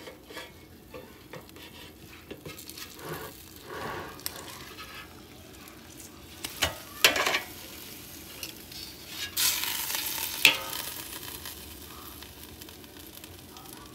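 Ribeye steak sizzling in a hot air-fryer basket as it is turned over with tongs, the tongs clicking against the basket a few times. About nine seconds in there is a louder burst of sizzling for about a second as the steak is laid back down on its uncooked side, ending in a sharp click.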